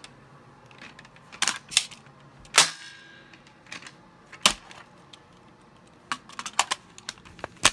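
Sharp plastic clicks and clacks of a toy rifle being handled, its magazine out and both pieces set down. The loudest clack, with a short ring, comes about two and a half seconds in, and a quick run of smaller clicks comes near the end.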